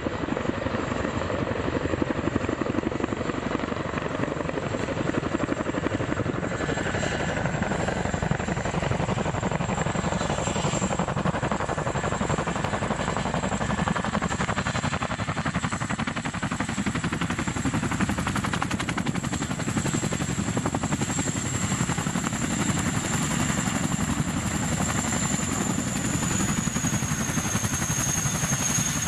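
Boeing CH-47 Chinook tandem-rotor helicopters flying in low and hovering, their rotors giving a steady, rapid chop under the high whine of the turboshaft engines. The whine dips slightly in pitch near the end.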